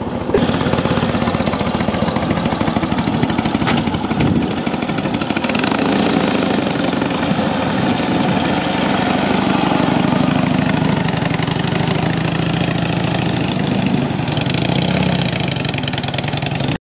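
1947 Indian Chief motorcycle's flathead V-twin engine running as the bike rides off at low speed.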